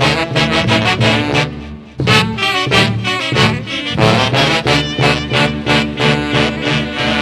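Orquesta típica playing a Santiago dance tune, with saxophones and brass carrying the melody over a steady beat. The music dips briefly just before two seconds in, then comes back at full level.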